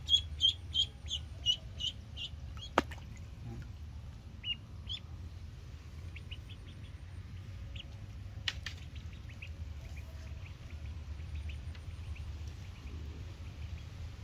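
Duckling peeping in a fast run of high chirps, about three a second, that dies away about two seconds in. Only scattered faint chirps follow, with a sharp click about three seconds in and a snap about eight and a half seconds in.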